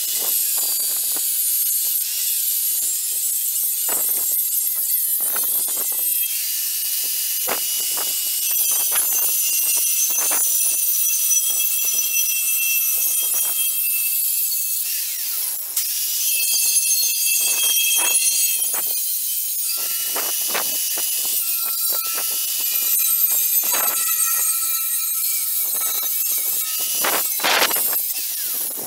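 Angle grinder cutting through the steel wall of an empty LPG gas cylinder: a loud, steady high-pitched grinding screech, the motor's whine shifting in pitch through the cut. It stops near the end.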